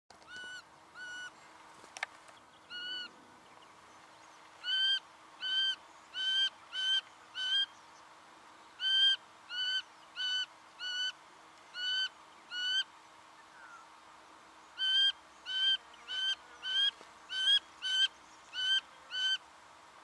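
Singing honeyeater calling: short, clear, slightly nasal notes repeated about two a second, in runs of several notes separated by short pauses.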